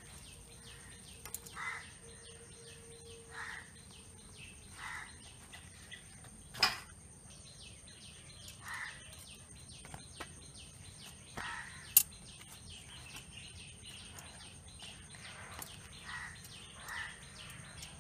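Birds chirping outdoors, with short calls repeating every second or two over many small high chirps. Two sharp clicks stand out, one about a third of the way in and one about two-thirds in.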